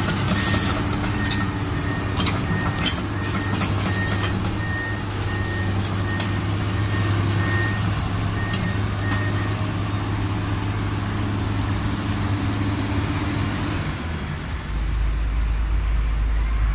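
Heavy machine's diesel engine running with a warning alarm beeping about twice a second, as an excavator is moved onto a truck trailer; the beeping stops about nine seconds in. Sharp metal clanks near the start, and near the end the engine settles into a deeper steady drone.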